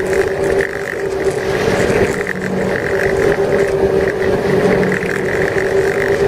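Ski boat engine running steadily at speed, a continuous drone with a steady hum and a whine over the noise of water and wind.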